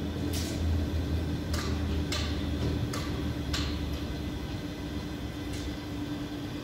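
Overhead crane with a magnet lifting beam at work over a steel rebar load: a steady low machine hum that weakens about three seconds in, with about six sharp metallic clinks spread through.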